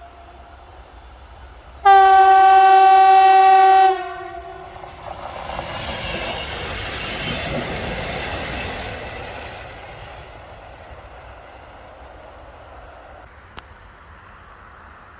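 Kockums Tyfon air horn on a Swedish electric multiple unit sounding one steady blast of about two seconds. The train then passes, its rolling and rail noise swelling and fading over several seconds.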